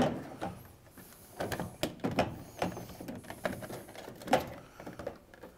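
Plastic control console of a front-load washer being handled and fitted onto the cabinet: irregular plastic clicks, knocks and rattles, the sharpest right at the start.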